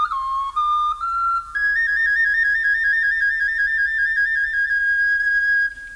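Solo flute music: a few short notes stepping down and back up, then a long, rapid trill between two high notes that stops just before the end.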